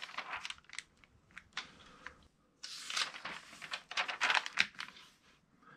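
Pages of a paper catalog being flipped and rustling under a hand, as a series of soft rustles that grow louder in the middle.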